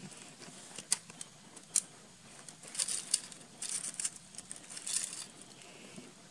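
Dry leaves and loose stones crunching and rustling underfoot on rocky ground. There are two sharp clicks, about one second in and just before two seconds, then clusters of dry crackling until about five seconds in.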